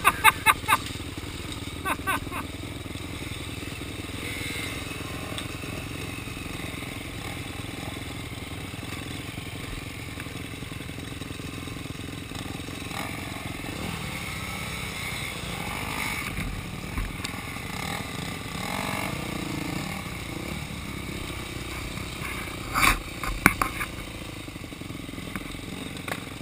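Dirt bike engines running steadily at idle, with a few short louder bursts just after the start, about two seconds in and again about 23 seconds in.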